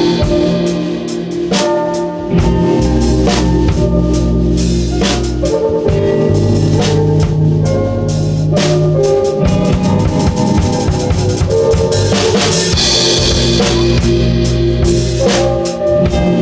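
A band playing an instrumental jam: a drum kit keeps a steady beat with bass drum and snare hits over held low bass notes and sustained chords.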